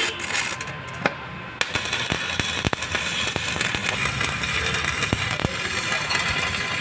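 Electric arc welding from a repaired inverter welding machine on a test run: a few sharp snaps, then from about a second and a half in a steady crackling hiss with many small pops as the arc burns.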